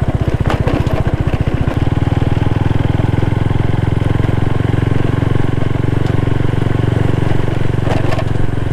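Bajaj Pulsar 135 motorcycle's single-cylinder four-stroke engine running while riding, with wind and road noise. A little under two seconds in, the engine note changes from a pulsing beat to a steadier, fuller drone.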